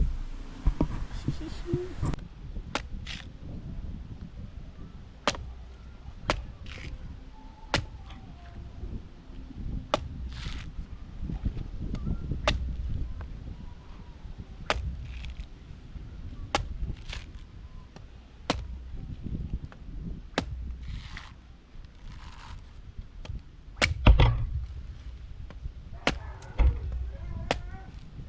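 A series of sharp, short knocks or strikes, irregular at roughly one a second with a louder pair about 24 seconds in, over a low wind-like rumble.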